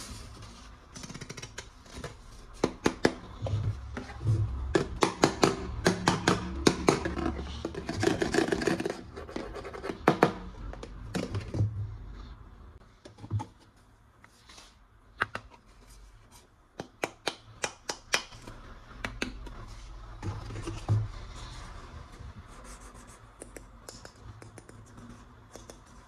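Plastic toy gun parts being handled: runs of sharp clicks and snaps with scraping and rubbing between them, busiest in the first ten seconds and again in a cluster a little past the middle.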